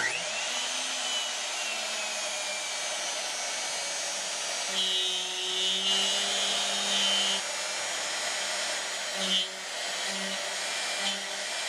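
CNC router spindle spinning up when the job is started: a whine that climbs quickly at the very start, then settles into a steady high whine over a rushing air noise. A second, lower motor hum with a high tone joins from about five to seven seconds in, and comes twice more briefly near the end.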